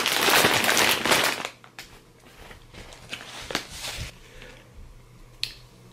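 Plastic Takis snack bag crinkling loudly as it is handled, for about the first second and a half. After that, quieter scattered crinkles and clicks of plastic being handled.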